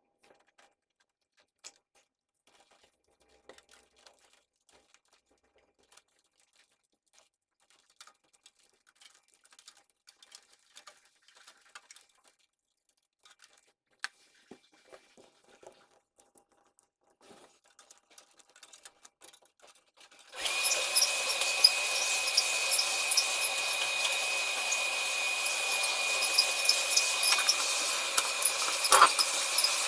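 Faint scattered clicks and rustles of handling, then about two-thirds of the way in a handheld power tool switches on suddenly and runs steadily with a high whine.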